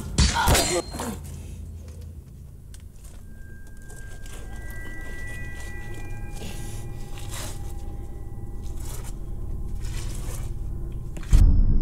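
Horror film soundtrack: a cry that breaks off about a second in, then a low eerie drone with a few long held high notes that slowly grows louder, until a sudden loud low hit near the end.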